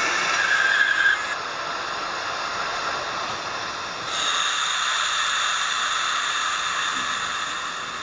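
Sound decoder of a Roco ÖBB class 1014 model electric locomotive playing its electric-locomotive sounds through the model's small speaker: a steady hissing with a higher squeal in the first second that stops. About four seconds in, a louder hiss with a faint high tone starts.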